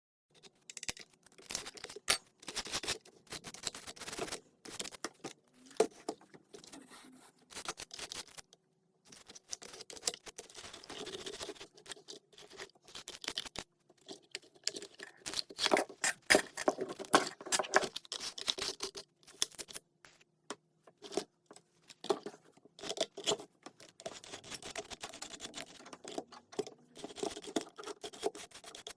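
Irregular close-up scratching, rubbing and light clicking of an RC car's plastic body and parts being cleaned by hand, busiest about halfway through.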